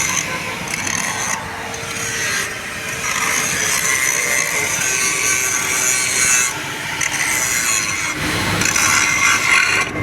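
Steady, harsh rasping hiss of metalwork on a pipeline weld. It drops off briefly about a second and a half in and again around six and a half seconds.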